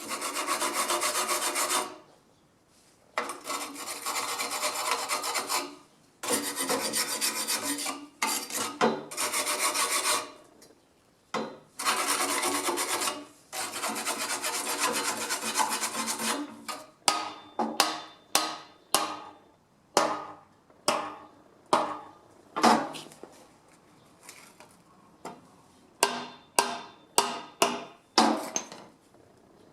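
Hand tool scraping back and forth on the exhaust front pipe of a Nissan Moco during repair of a rattling front pipe: long strokes in the first half, then quicker short strokes about two a second.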